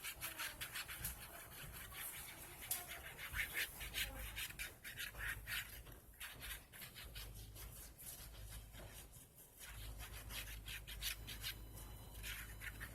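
Paper being rubbed in quick, repeated scratchy strokes, as when glued collage pieces are pressed and smoothed down onto a glue book page.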